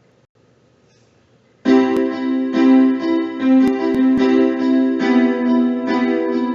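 Casio CTK-6000 electronic keyboard playing a song in a piano voice, starting about one and a half seconds in with held chords and a melody, after a short near-silent pause.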